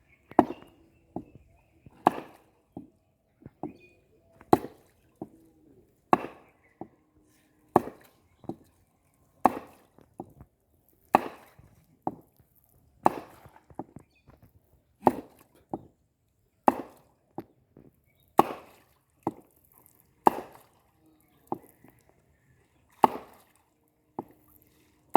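Steady series of heavy blows on wood, one roughly every one and a half to two seconds, with lighter knocks between: chopping or hammering while building a fishing raft.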